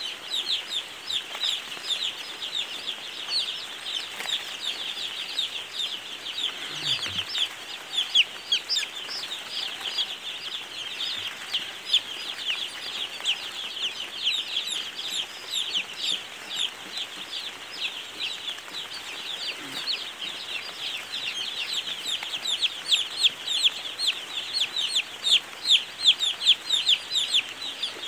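A large flock of young chicks peeping all together: a dense, unbroken chorus of short, high, falling peeps, growing louder near the end.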